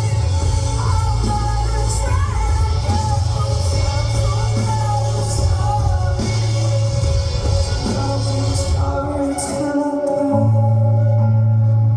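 Music: a song with a singing voice over held bass and chords. The bass falls away around nine seconds in, and a new low bass note comes in just after ten seconds.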